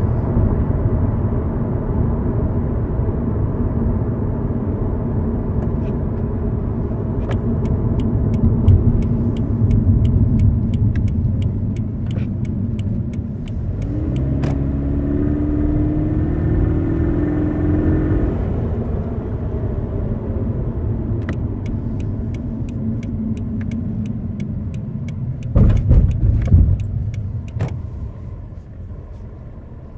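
Inside the cabin of a 2018 Subaru BRZ tS on the move: steady engine and road noise, with a trim rattle ticking in as sharp clicks, frequent from about seven seconds in and again in the second half.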